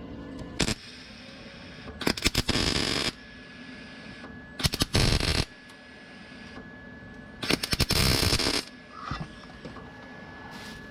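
Short bursts of MIG welding on thin car-body sheet metal, crackling: three bursts about a second long, one about two seconds in, one near the middle and one at about eight seconds, as patches are tacked over corrosion holes in the wheel arch.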